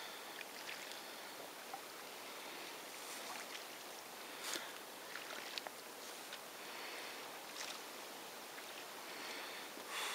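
Lake water lapping and washing against the side of a canoe under way, with soft splashes every couple of seconds.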